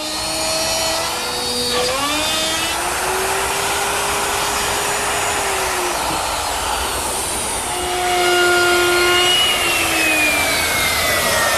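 Electric router with a guide collar and a 3/8" straight bit running and cutting wood, following the inside of a template to cut out a handhold. The motor's whine slides up and down in pitch as the cut loads and frees the bit.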